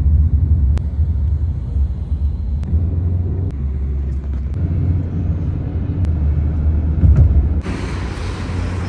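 Low road rumble inside a moving car, with a few faint clicks. Near the end the sound switches abruptly to a steady outdoor hiss of street noise.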